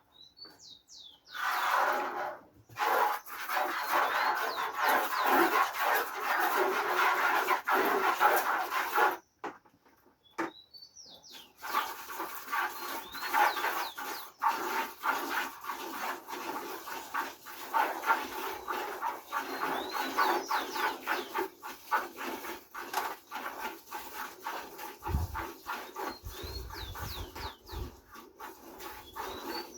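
Hand milking: rapid, rhythmic squirts of milk hitting a pail, with a pause about nine seconds in before the streams start again.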